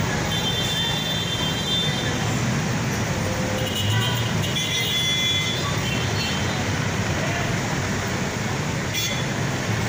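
Dense city traffic jam: the steady mixed noise of many cars, jeepneys, tricycles and motorcycles moving slowly. A few brief high-pitched tones sound over it near the start and again about four seconds in.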